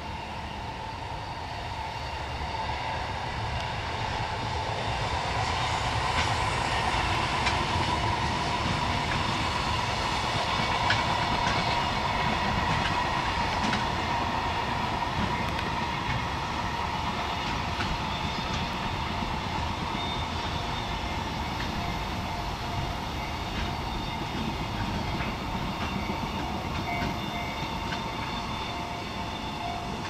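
Electric-locomotive-hauled container freight train rolling past, its wagons clattering over the rail joints. The sound swells as the train draws near, then eases slowly as the long string of container wagons goes by.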